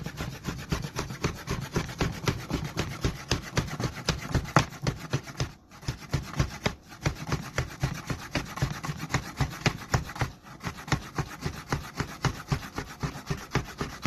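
Kitchen knife sawing back and forth through raw chicken breast on a cutting board, slicing it thin, in quick strokes about four or five a second with two brief pauses near the middle.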